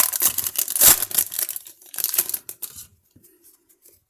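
A trading card pack's foil wrapper being torn open and crinkled in the hands. The loudest ripping comes about a second in, and the crackling dies away just before three seconds.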